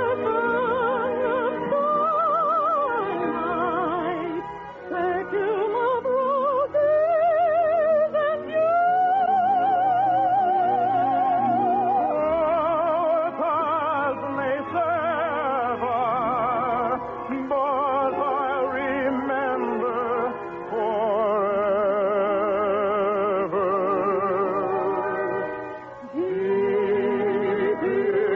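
Operetta singing with orchestra: a voice holds long notes with wide vibrato over sustained instrumental chords. The sound is the narrow, muffled sound of a 1951 radio broadcast recording. There is a brief break about two seconds before the end, then a new held note.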